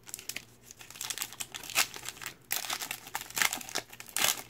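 Foil wrapper of a 2019-20 Panini Mosaic NBA trading-card pack crinkling and tearing as it is handled and ripped open by hand: a dense run of irregular crackles with a brief pause about halfway.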